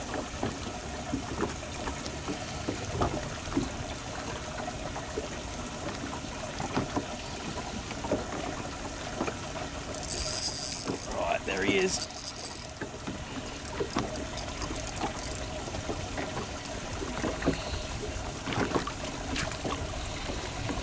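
Spinning reel being wound and its drag ticking while a hooked bream is played on a bent rod, with a short burst of drag about halfway through and then scattered clicks.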